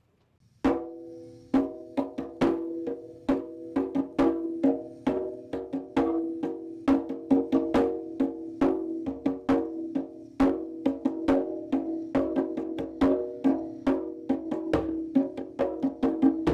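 Opening drumming on a pitched percussion instrument, starting about a second in. There are several sharp strikes a second, growing denser, and each one rings on in a few steady notes that overlap into a sustained chord.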